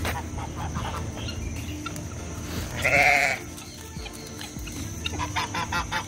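A goat bleats once, a wavering call of about half a second, about three seconds in, over background music.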